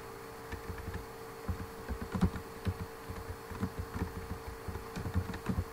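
Typing on a computer keyboard: irregular soft key clicks and thumps, several a second, over a steady hum.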